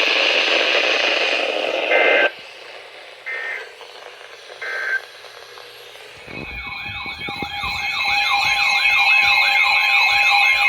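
Emergency Alert System end-of-message signal: three short bursts of two-tone data squeal, about a second and a half apart, after a moment of radio hiss. About six seconds in, a loud wavering siren-like alarm starts, rising and falling about twice a second over a steady two-note tone, opening the next alert.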